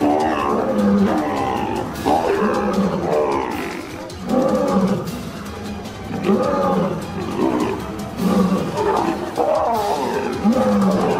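Lion giving repeated growling roars, one every second or two, over background music.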